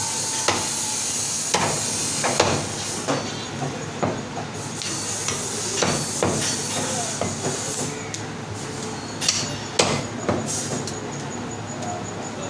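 Butcher's cleaver chopping mutton on a round wooden chopping block: sharp, irregular chops about once a second, some louder than others, over a steady background hiss.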